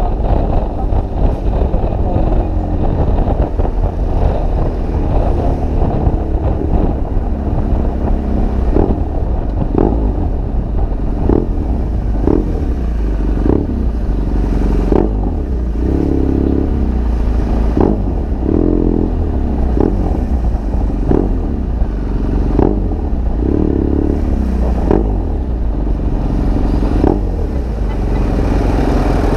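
BMW R1200GS Adventure's boxer-twin engine running through an aftermarket SC Project GP exhaust while riding in slow traffic. From about eight seconds in, a short clack repeats roughly once a second.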